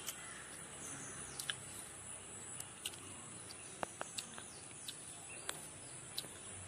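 Faint outdoor ambience: a steady high insect drone, with scattered short bird chirps that fall in pitch and a few light clicks.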